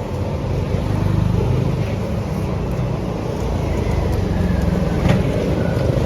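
Steady low rumble of a motor vehicle or road traffic, with a single sharp click about five seconds in.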